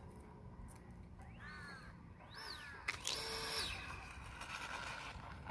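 Electric ducted fan (FMS 70 mm 12-blade EDF with brushless motor) on a radio-controlled truck whining as it is throttled. It gives two quick blips that rise and fall in pitch, then holds a steady high pitch for under a second before winding down.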